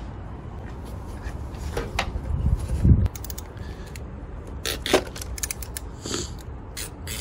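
Steel hand tools clinking as a ratchet, extension bar and universal-joint spark plug socket are fitted together and seated in a spark plug well: a few sharp metal clicks, with a dull low knock about three seconds in.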